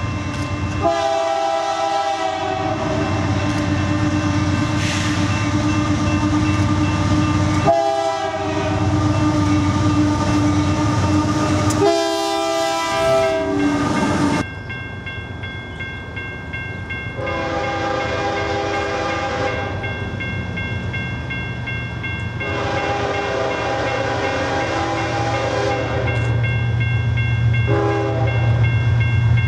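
Freight train horns sounding for grade crossings, over the low rumble of approaching diesel locomotives. A GE locomotive leading an intermodal stack train blows three separate blasts. After a cut, a CSX GE locomotive leading a train of empty open-top hoppers blows two long blasts and a short one, its engine rumble growing as it nears.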